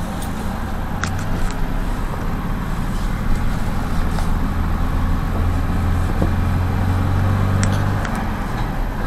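Minibus engine and drivetrain heard from inside the cabin while driving: a steady low drone that grows louder from about four seconds in and eases off near the end, with a few light clicks and rattles.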